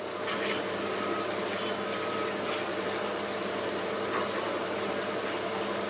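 Steady mechanical drone of machinery with a few faint, short high beeps about a second and two seconds in.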